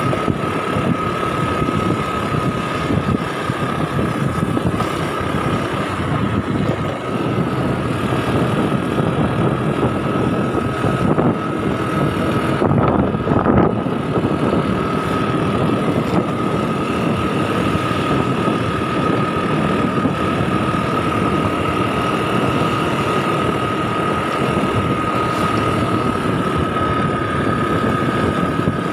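Automatic motor scooter running along at riding speed, its engine drone mixed with wind noise on the microphone and a steady high whine held throughout. The sound swells briefly about halfway through.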